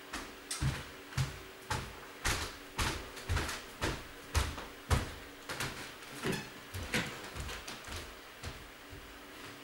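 A run of knocks and thuds, about two a second, with light scraping, from moving about and handling boxes in a bare, echoing room.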